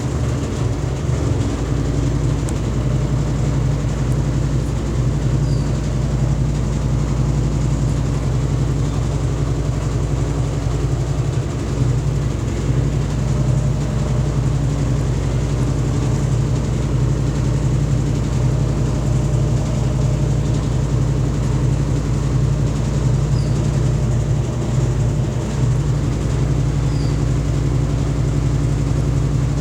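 Easy 6.0 washing machine running with a loud, steady low rumble and a fast rattle, its drum knocking hard against the cabinet.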